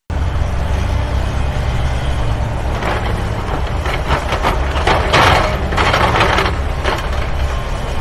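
Tracked excavator's diesel engine running steadily with a low drone. Louder rushing bursts come between about three and seven seconds in, as the bucket is emptied over a dump truck.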